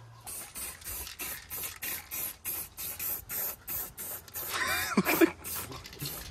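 Aerosol spray-paint can hissing in quick, evenly spaced short bursts, about four a second, as paint is sprayed onto a plastic part.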